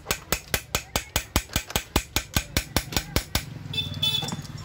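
Ratchet wrench clicking in quick, even strokes, about five a second, as it turns the bolt of a battery terminal clamp; the clicking stops about three and a half seconds in.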